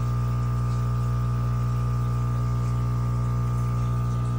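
Aquarium pump humming steadily: a constant low hum with fainter higher tones stacked above it.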